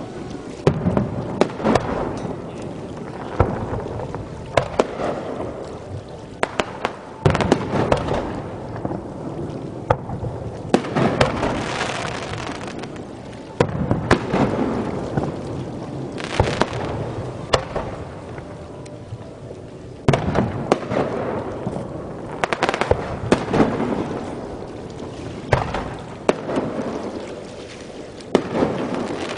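Fireworks display: repeated sharp shell bursts, often several in quick succession, each followed by a rolling echo and crackle.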